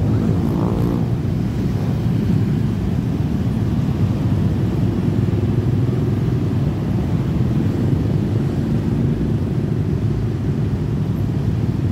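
Dense road traffic of motorcycles and cars driving over a level crossing, a steady low engine rumble, with one engine revving up in pitch about a second in.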